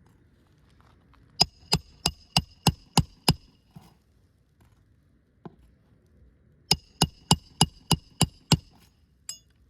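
Roofing hammer driving roofing nails into a three-tab asphalt shingle through a roof snake. There are two runs of about seven quick blows, roughly three a second, each with a metallic ring, and a lighter tap after each run.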